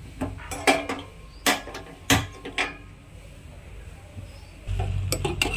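Kitchen clinks and knocks of metal, like a steel pot and utensils being handled, five or so sharp ones in the first few seconds. Near the end a low steady rumble comes in.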